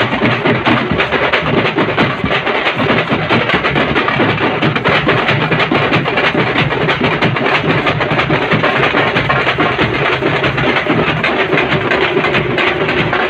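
A large ensemble of thappetlu (tappeta frame drums) played together with sticks in a fast, dense, continuous rhythm. A steady held tone joins near the end.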